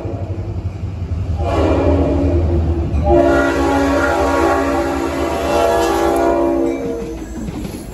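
Diesel locomotive's multi-tone air horn sounding for a grade crossing: after a pause of about a second and a half, one blast runs straight into a long blast of nearly four seconds that stops as the locomotive reaches the crossing. The engine's low rumble sits under the horn, and the wheels clatter over the rails near the end as the locomotive passes.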